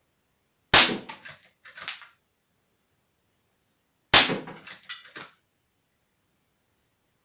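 Walther Lever Action CO2 air rifle firing twice, about three and a half seconds apart. Each sharp crack is followed by a few smaller metallic clacks, the lever being worked to chamber the next pellet.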